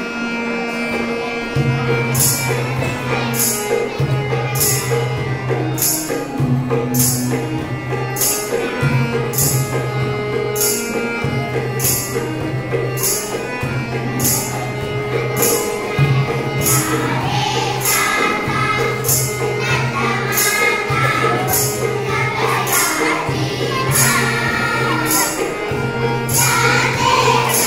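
Harmonium playing a held melody with a dholak keeping a steady beat. Children's voices sing along, growing stronger in the last ten seconds.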